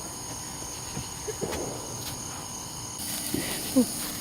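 Crickets chirring steadily in the night. A few faint clicks sound in the middle, a brief voice comes in near the end, and a soft hiss grows from about three seconds in.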